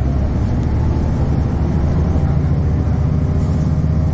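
Cummins ISB 6.7-litre diesel of a 2009 NABI 40-LFW hybrid bus with Allison EP40 hybrid drive running, heard from inside the passenger cabin as a steady low drone.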